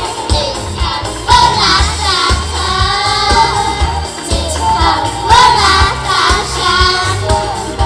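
A group of girls singing a pop song together into microphones over an amplified backing track with a steady bass beat.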